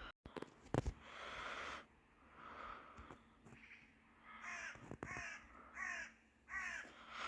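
Crow-family birds calling, a run of about five harsh, falling caws in the second half, a little over half a second apart.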